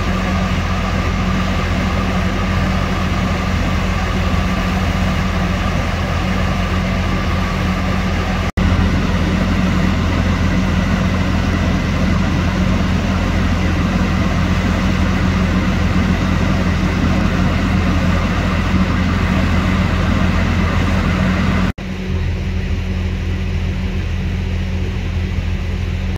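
A heavy vehicle's engine running steadily with a low, constant hum. It is broken twice by abrupt cuts, about a third of the way in and near the end, and is a little quieter after the second.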